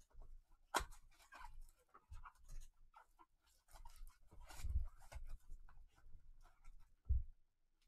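Cardboard trading-card box being opened by hand: quiet scattered rustles, scrapes and clicks of the flaps and inner box, with a few soft thumps.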